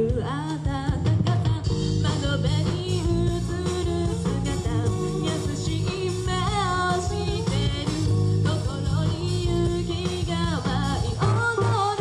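A woman singing lead into a handheld microphone over a live J-rock band with electric guitar.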